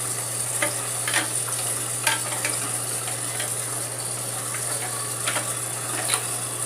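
Steady hiss of water running into a toilet tank through the fill valve as the tank refills, with a few light clicks and knocks scattered through it.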